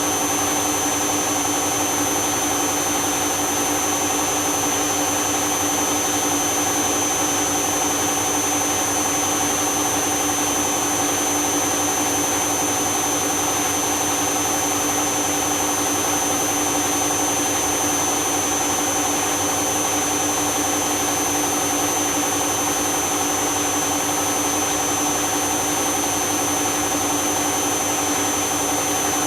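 Candy washing machine running steadily with its empty drum turning, a constant motor whine with no change in speed.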